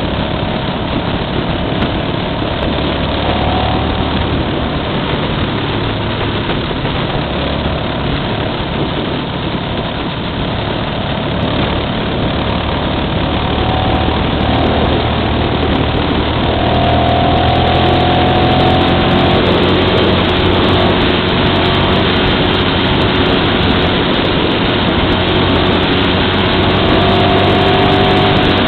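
Motorcycle engine running steadily under a loud rushing noise of wind and road, recorded from the bike itself while riding; it gets a little louder about halfway through.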